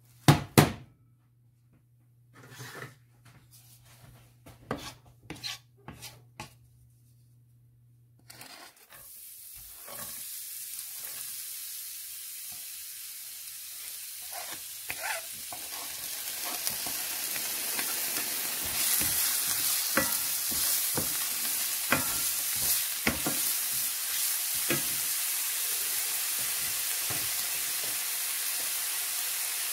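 Chopped onion and garlic sizzling in hot olive oil in a ceramic-coated frying pan, while a wooden spoon stirs them and knocks against the pan. The first eight seconds hold only scattered clicks and knocks; the sizzling starts after that and grows louder.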